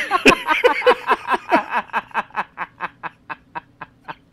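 Prolonged, hearty laughter: a rapid run of ha-ha pulses that slows and fades toward the end.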